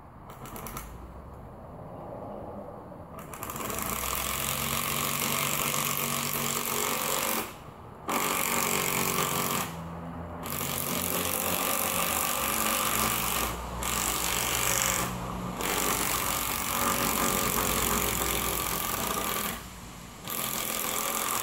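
Power drill driving screws into a wooden greenhouse frame post. It starts a few seconds in and runs in long bursts, stopping briefly about five times between them.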